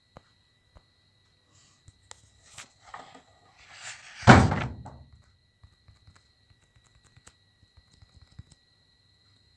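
A school textbook being handled, its pages rustling, then one loud thud about four seconds in as the book is shut and set down on the table, followed by a few faint clicks.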